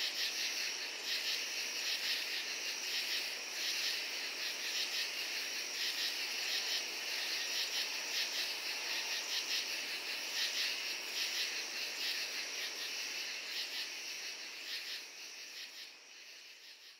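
Night chorus of crickets and katydids: a dense, steady, high trilling with quick repeated pulses, fading out near the end.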